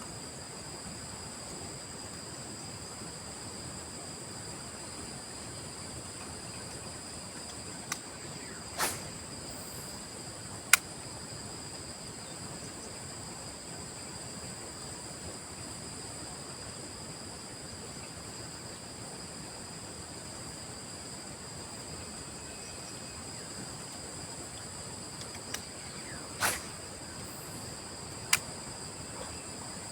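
Insects trilling steadily in two high, unchanging tones over a faint outdoor hiss. Twice a short swish is followed about two seconds later by a sharp click.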